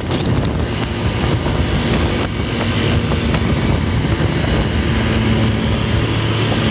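Sinar Jaya coach bus at speed giving a shrill, steady, flute-like whistle. The whistle sounds briefly about a second in and returns from about five and a half seconds, over the bus's engine drone and road rumble.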